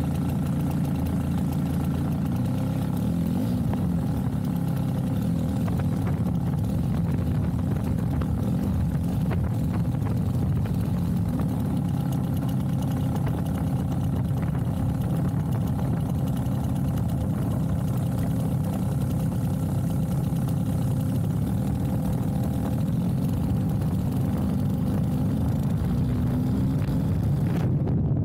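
The DA100 100cc twin-cylinder two-stroke petrol engine of a giant-scale RC Sopwith Pup running steadily at low speed, heard close up from the model's cockpit, its pitch wavering only slightly.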